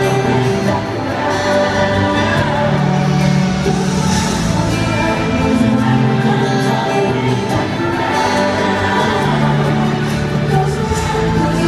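Live pop concert music in an arena: a band playing long held chords with several voices singing.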